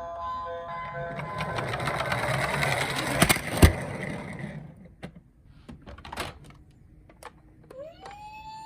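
Toy minicar rolling down a slope with a whirring rattle for about three seconds, ending in two sharp knocks, then a few light clicks. Near the end a toy's electronic siren starts up with a rising wail.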